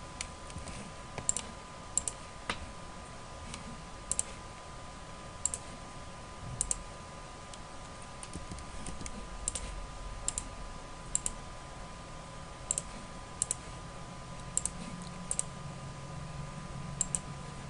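Computer mouse clicking: short sharp clicks, often in quick pairs, every second or so at an uneven pace. Underneath runs a faint steady hiss with a thin electrical whine.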